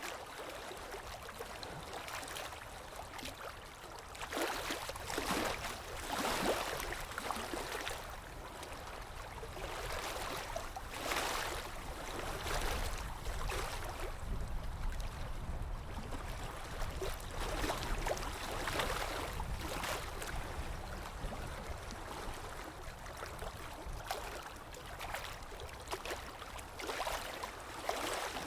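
Rain and flowing-water ambience: a continuous wash of water noise that swells and eases every few seconds.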